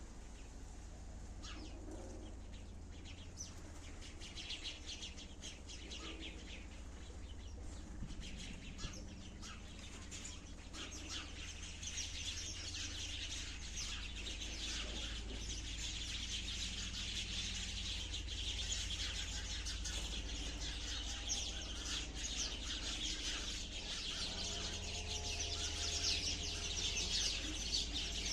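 Sparrows chirping in a busy chorus of short, high chirps that grows much denser about a third of the way in, over a steady low hum.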